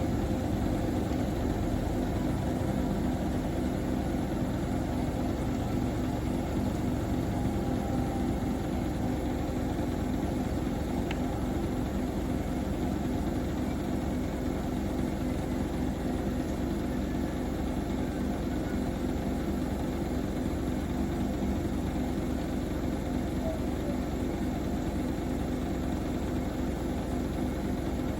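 Two Bosch front-loading washing machines, a Serie 4 and a Logixx 8, in their high-speed final spin, their drums whirring in a steady hum that neither rises nor falls.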